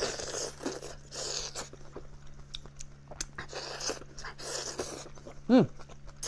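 Close-miked chewing and slurping of soft lobster meat: wet mouth noises and small smacking clicks. About five and a half seconds in comes a short, falling vocal "mm", the loudest moment, over a faint steady low hum.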